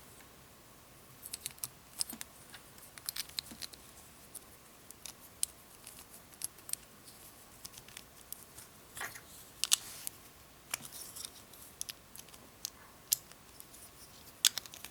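Small Beyblade parts clicking and clacking together as a Meteo L-Drago DF105LRF top is assembled by hand: fusion wheel, clear wheel, track and tip being fitted and turned into place. Irregular sharp clicks, a few louder ones.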